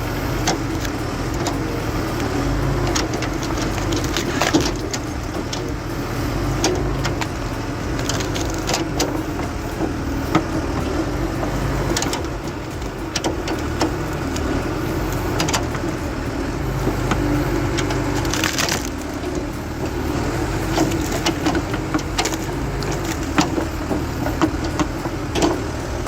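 Excavator-mounted hydraulic stump-splitting grapple crushing and splitting a root-bound stump, with repeated sharp cracks of wood splintering over the steady run of the excavator's engine and hydraulics.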